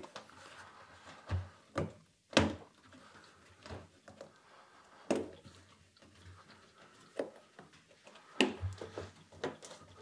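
Hands pressing a front-loading washing machine's rubber door seal onto the lip of the front panel: scattered soft rubbing with a handful of short knocks against the machine's casing, the sharpest about two and a half seconds in.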